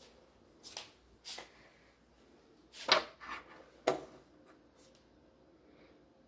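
Hands rummaging and handling objects: a handful of short knocks and rustles, the loudest about three seconds in.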